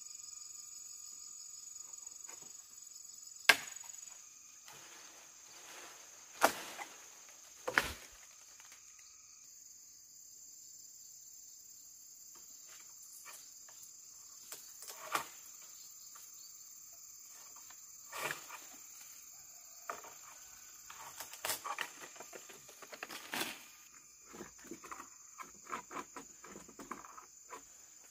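A long bamboo pole knocking and snapping among tree branches as mac khen fruit clusters are picked: three sharp cracks in the first eight seconds, then a run of smaller clicks, snaps and leaf rustling in the second half. Under it, a steady high insect drone.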